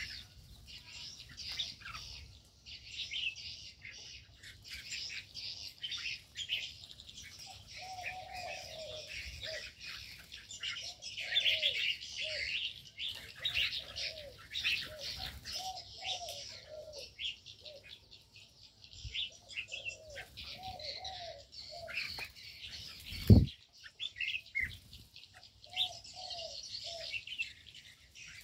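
Aviary birdsong: continuous high chirping and chattering of bulbuls, with a spotted dove cooing in repeated short, arched phrases from about eight seconds in. About two-thirds of the way through comes one sudden loud low thump.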